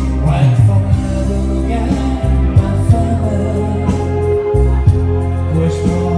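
A song playing: a voice singing over instrumental backing with a heavy, steady bass.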